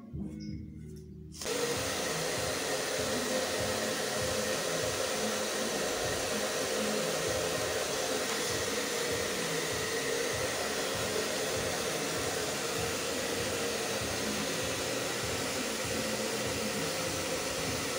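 Handheld hair dryer switched on about a second and a half in, then running steadily with a constant airy blowing.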